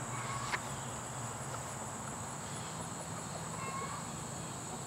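Insects, crickets by the sound of it, trilling steadily at a high pitch over a low, steady hum, with one brief faint chirp about half a second in.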